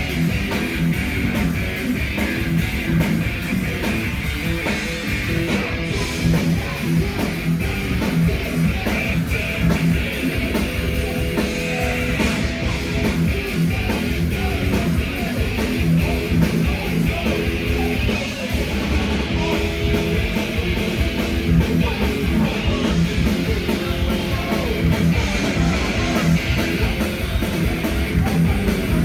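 Crossover thrash band playing live: fast distorted electric guitars, bass and drums, loud and continuous, with shouted vocals at times.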